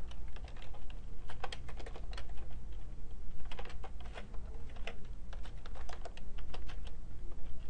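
Typing on a computer keyboard: irregular keystrokes in quick runs with short pauses between them.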